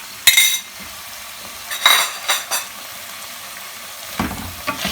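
Beef mince sizzling as it fries in a pot, with a steady hiss and several short scrapes and clinks of a spoon stirring against the pot.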